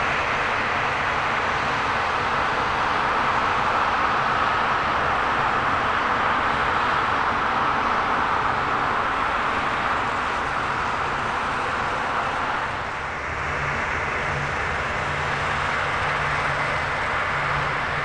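New Holland CR10.90 combine harvester running under load while cutting and threshing wheat: a steady, loud machine drone. About two-thirds of the way through, the sound shifts and a steadier low engine note comes forward as the tractor and grain cart run alongside.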